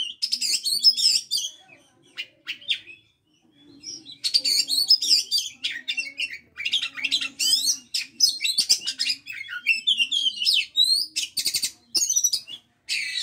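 Oriental magpie-robin singing in long, varied runs of loud whistled and scratchy phrases, with a short pause about two seconds in and a fast rattling burst near the end.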